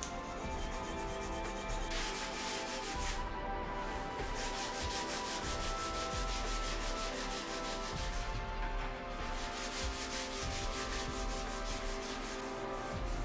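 Sandpaper rubbed by hand over a metal vase in quick, repeated back-and-forth strokes.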